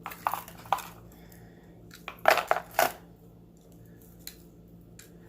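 Jewelry clinking and rattling as hands dig through a box of pieces: a few light clinks at first, a louder clatter a little after two seconds, then a couple of faint ticks.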